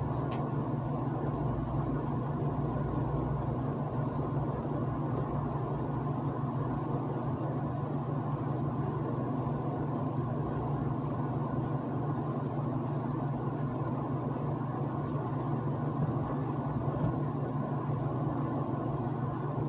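A steady, unchanging low mechanical hum, like a fan or ventilation running.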